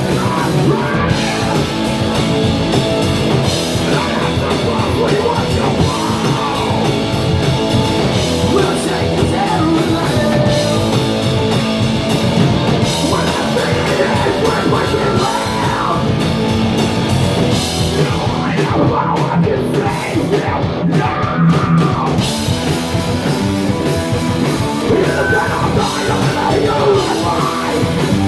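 Live punk rock band playing: electric guitars, bass guitar and a drum kit, with a singer singing into a microphone over them.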